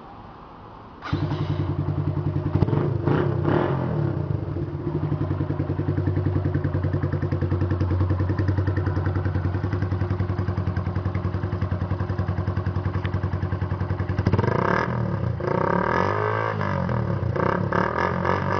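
Suzuki Yes 125 single-cylinder four-stroke motorcycle engine with an aluminium exhaust, starting abruptly about a second in and idling steadily. From about fourteen seconds it is revved in short repeated blips.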